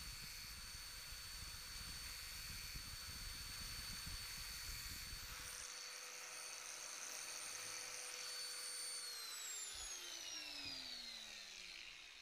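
Angle grinder running with a steady high whine, grinding a worn Sturmey-Archer hub pawl back to a sharp edge. The rough grinding stops a little before halfway, the disc spins free for a few seconds, and then the grinder is switched off and winds down with a falling whine.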